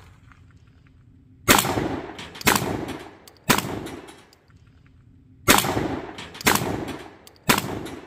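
Remington 1100 12-gauge semi-automatic shotgun firing birdshot in quick succession: six shots about a second apart, in two strings of three, each with a ringing tail.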